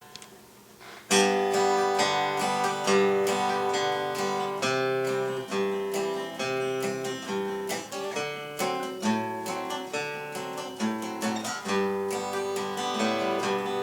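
Acoustic guitar strumming chords as the instrumental intro to a song. It starts about a second in.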